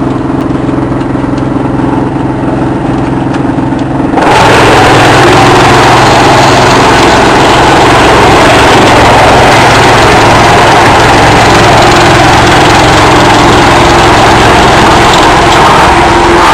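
Big drum wood chipper running: a steady machine hum, then about four seconds in a sudden jump to a much louder, steady rushing noise that carries on.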